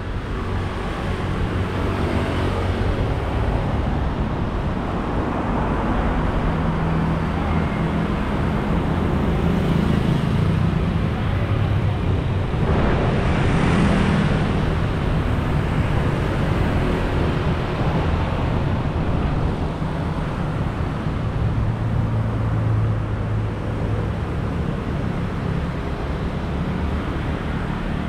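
Road traffic of motor scooters and cars passing close by: a steady wash of engine hum and tyre noise, swelling as vehicles pass about halfway through.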